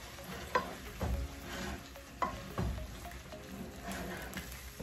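Wooden spatula stirring and scraping shell-on shrimp around a frying pan of sizzling chili-garlic sauce, with a couple of sharp knocks of the spatula against the pan, about half a second in and again a little after two seconds.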